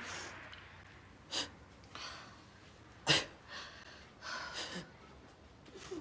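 A person crying: several sharp sniffs and gasping breaths, the loudest about three seconds in.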